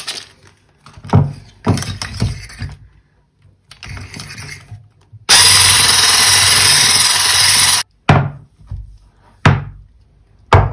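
Electric stick blender running for about two and a half seconds in a steel pot of thick pudding, mixing in whipped-cream powder, then cutting off suddenly. Knocks and clatter come before and after it.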